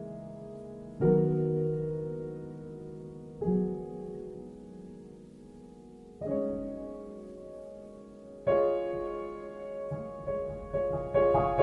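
Background music: slow, gentle piano chords, each struck and left to fade, about every two to three seconds, with quicker notes coming in near the end.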